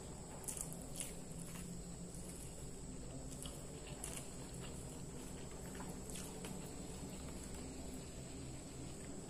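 Close-up eating sounds: chewing and soft mouth clicks, with a few sharper ticks as fingers squeeze and gather rice on a banana leaf laid over paper. Underneath runs a steady low hum and a faint high whine.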